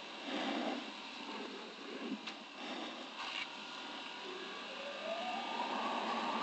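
Motorcycle engine heard from an on-board camera: a few short surges early on as the rider works through a turn, then from about four seconds in a steadily rising pitch as it accelerates away.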